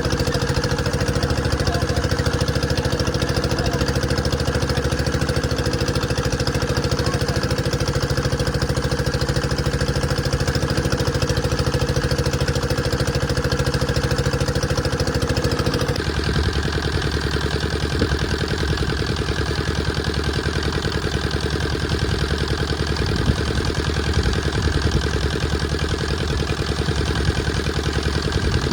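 Engine running steadily at idle. Its note changes abruptly about halfway through, from a steady hum to a lower, rougher throb.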